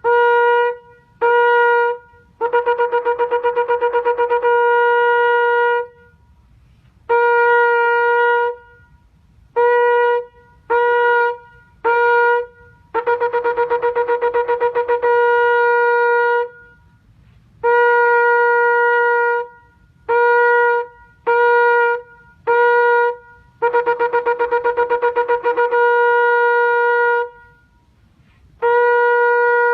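Shofar blown in repeated call sequences: two to four short blasts, then a long run of rapid staccato pulses that ends in a held note. The sequence comes round about three times, with a pause of about a second between blasts.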